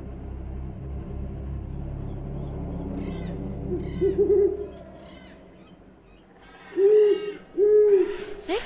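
An owl hooting: one hoot about four seconds in, then two more, about a second apart, near the end, each about half a second long. Under the first half is a low rumble that dies away before the last two hoots, and a short rising sweep comes at the very end.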